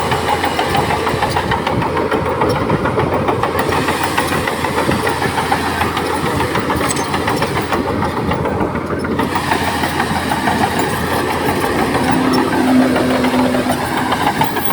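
Bulldozer's diesel engine running steadily while working, with a short steady tone rising above it for about a second and a half near the end.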